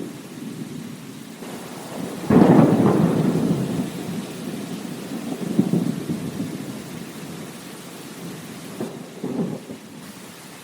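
Steady rain falling, with a sudden clap of thunder about two seconds in that rumbles on and fades over several seconds, followed by two weaker rolls of thunder.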